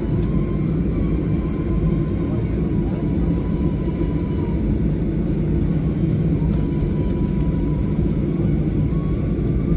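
Airliner at takeoff: a steady, loud low rumble of the engines with a faint, even whine.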